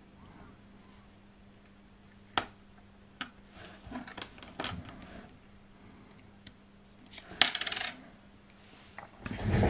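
Small metallic clicks and taps as a CR2016 lithium coin cell is pried out of a watch's battery holder with tweezers, with a sharp click about two and a half seconds in. About seven and a half seconds in, the freed cell drops with a louder click and a brief ring.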